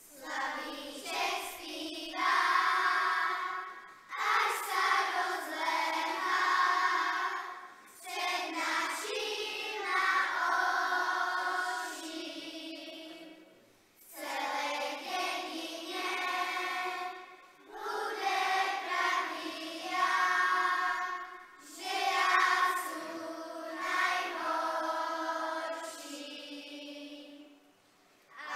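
Children's choir singing a song in phrases of a few seconds. There is no accompaniment, and the sound goes almost quiet in the short breaks between phrases.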